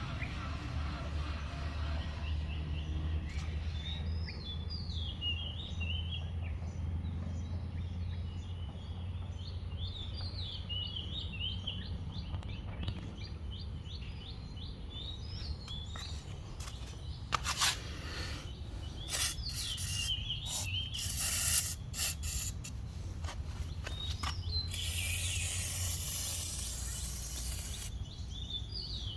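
Old automatic gate running: its motor hums low and steady while short high-pitched squeaks repeat from its moving parts, the squeak that calls for lubrication. A few clicks sound past the middle, and near the end a hiss of aerosol spray, WD-40, lasts about three seconds.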